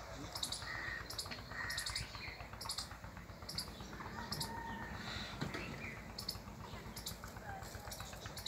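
Small birds chirping in short, very high notes, repeated every half second or so, over a low steady rumble.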